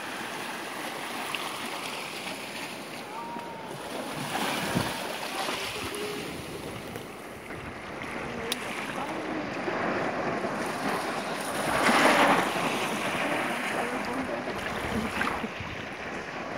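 Small waves washing up over sand at the water's edge, surging loudest about twelve seconds in, with wind on the microphone.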